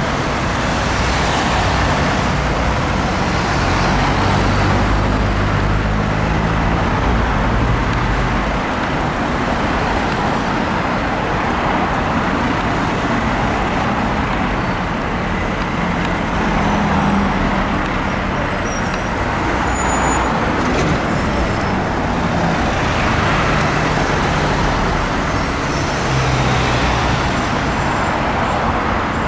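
Diesel engine of a fire engine running steadily with passing road traffic, a continuous low rumble under a noisy haze. A few brief high squeaks come about two-thirds of the way through.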